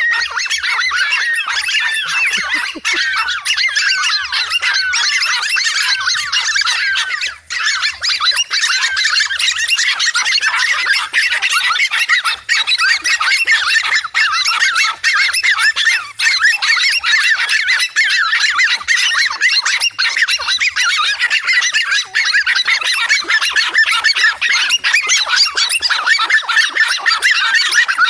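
Several dogs barking and yapping without pause at a large lizard they hold at bay, many high-pitched barks overlapping into one continuous racket.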